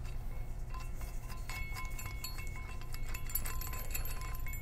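Metal bolts and washers clinking against the hitch bar as they are fitted and threaded in by hand: a run of small metallic clicks and short rings.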